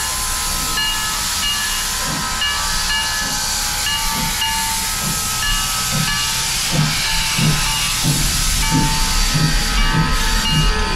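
Oil-burning 0-4-0 tank steam locomotive Santa Cruz Portland Cement No. 2 hissing steam as it starts to move slowly. Its low exhaust chuffs become regular from about six seconds in, while short ringing tones repeat throughout.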